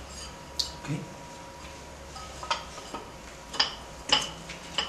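Light clicks and knocks, about seven spread over a few seconds, from small glass wine glasses being handled and fitted into a silicone sublimation mold.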